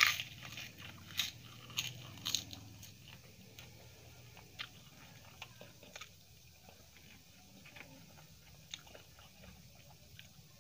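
A crisp fried papad bitten into with a loud crunch, then crunched three or four more times over the next two seconds or so. After that come quieter chewing and small mouth clicks.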